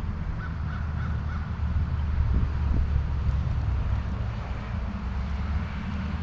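Steady rush of stream water, with a crow cawing a few short times in the first second or two.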